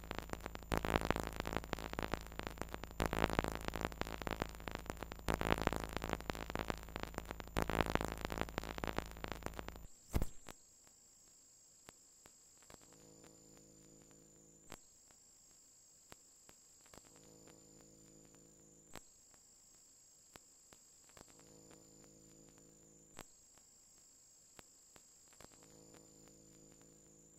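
Loud electronic backing music with a regular beat, which cuts off suddenly about ten seconds in. It gives way to a quiet passage: a faint high steady tone and a soft low synth chord repeating about every two seconds.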